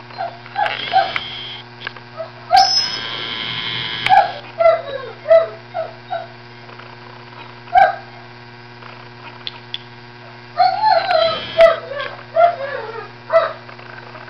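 A dog whining and yipping in short, high, falling cries that come in scattered bouts, with a longer, louder cry about three seconds in and a run of them about eleven seconds in.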